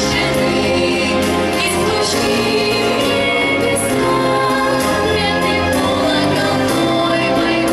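Children's vocal group singing a song together, with musical accompaniment.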